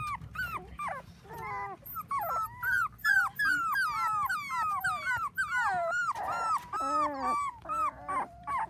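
A litter of 4-week-old dachshund puppies whining and squeaking, many short high calls overlapping, several a second, with a few lower cries about two-thirds of the way through.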